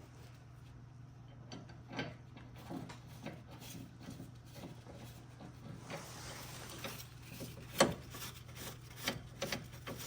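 Scattered clicks and knocks of metal parts being handled as a brake caliper bracket and its bolts are fitted at a car's wheel hub, with a brief scraping rub about six seconds in and a sharp knock near the eight-second mark.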